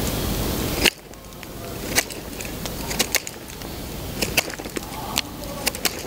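A small wood campfire crackling, with irregular sharp pops and snaps. Before it, for about the first second, there is a louder steady rushing noise that cuts off suddenly.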